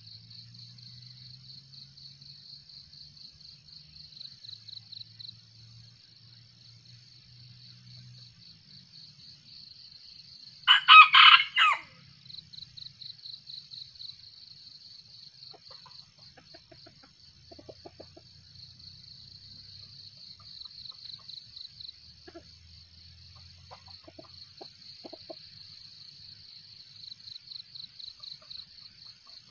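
A red junglefowl rooster crows once, a single short crow of about a second, roughly a third of the way in. Insects trill in steady pulses throughout.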